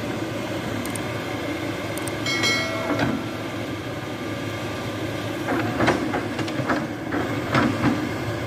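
Hitachi ZX-210 long-reach excavator's diesel engine running steadily under working load, with a brief high squeal about two seconds in and a string of metallic knocks and clanks in the second half.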